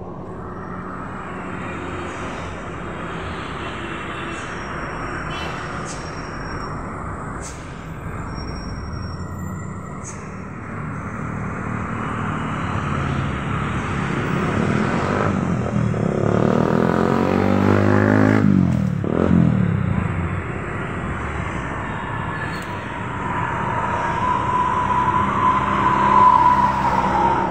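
Steady outdoor traffic noise. A motor vehicle passes close by about two-thirds of the way through, its pitch sweeping as it goes, and a steady higher tone comes in near the end.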